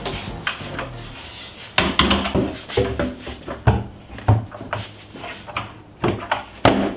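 A shop vac and a plastic cyclone bucket being set into a plywood cart: a string of knocks and clunks of plastic and wood, the sharpest about two seconds in and near the end.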